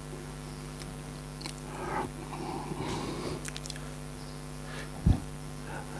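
Steady electrical mains hum, with scattered sharp clicks, a brief soft rustle and a low thump about five seconds in.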